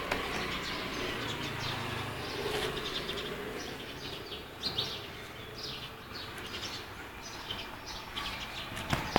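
Small birds chirping: short, high, repeated chirps over steady outdoor background noise.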